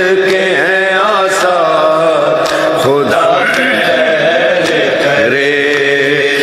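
A man's voice chanting a noha, a Shia lament, in long melismatic phrases with held, wavering notes over a steady low backing.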